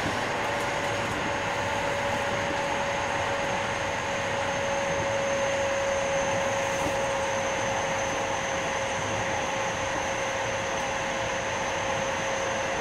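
JR West 321 series electric train running at a steady speed, heard from on board: a constant rumble of wheels on rail, with a steady whine held at one pitch throughout.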